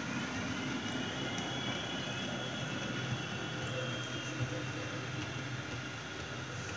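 Märklin HO model railway layout in operation: a steady rumble of model trains running on the track, with a faint high motor whine that rises in pitch and then holds.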